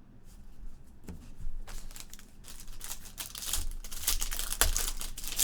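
Trading-card packaging being handled: plastic wrapper crinkling and rustling with quick clicks, sparse at first and thickening into a louder flurry from about two seconds in.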